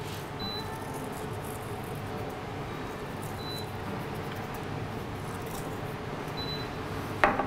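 Steady background noise of a commercial kitchen, with a few faint short high beeps spaced a few seconds apart.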